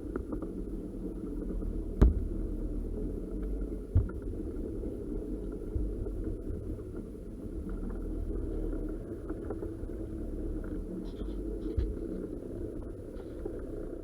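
Fishing boat's engine running steadily with a low rumble, with a few sharp knocks about two and four seconds in.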